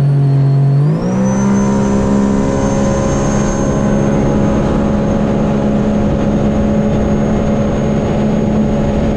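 2021 Sea-Doo RXT-X jet ski engine running at high throttle, its pitch stepping up about a second in and then holding steady at high revs, with a high whine rising along with it. It is turning a 13/16 Solas three-blade prop, on which the rider finds the engine spins to too many RPM.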